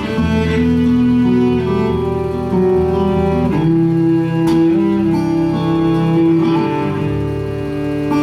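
Instrumental break in a live acoustic song: acoustic guitar accompaniment under a bowed string instrument playing long held melody notes.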